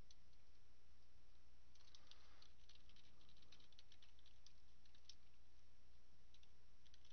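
Faint computer keyboard typing: a quick run of keystrokes from about two seconds in, with a few more near the end, over a steady low hum.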